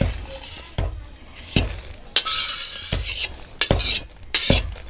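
A steel ladle clinking and scraping against a metal wok in a run of sharp, irregular knocks, as puffed gond (edible gum) is scooped out of hot oil.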